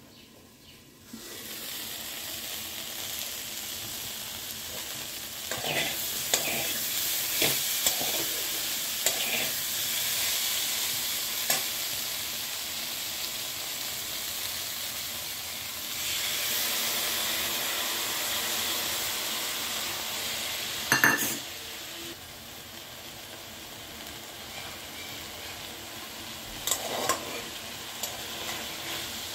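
Drumstick (moringa) pods and potato pieces sizzling in a frying pan. The sizzle comes up loud about a second in, as the lid is lifted. A metal spatula scrapes and taps against the pan now and then as the vegetables are stirred.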